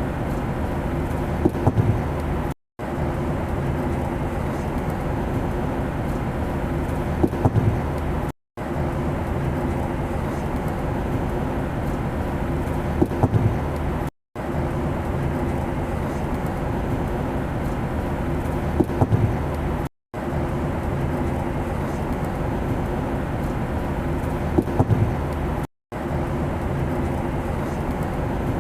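Steady airplane engine drone with a low hum, from a short recording looped over and over: it cuts out for an instant about every six seconds, just after a few faint ticks, then starts again.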